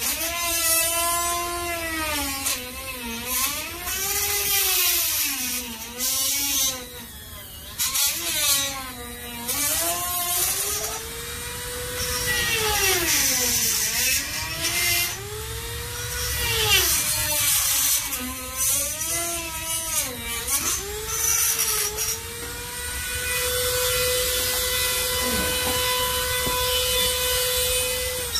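Small handheld electric cutting tool cutting off a lip of a C5 Corvette's front fender panel; its motor pitch drops again and again as the tool bites under load and climbs back as it frees. Near the end it runs freely at a steady pitch.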